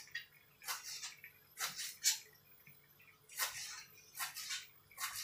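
Knife cutting fresh coriander on a cutting board: about six separate, short cuts, unevenly spaced.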